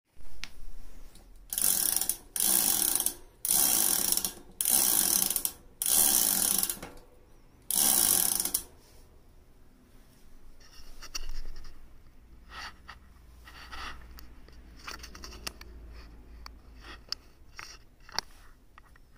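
Bicycle rear freehub ratcheting as the wheel and cassette are spun by hand: six short, loud buzzing runs of fast pawl clicks, then quieter, scattered clicks through the second half as the wheel turns slowly.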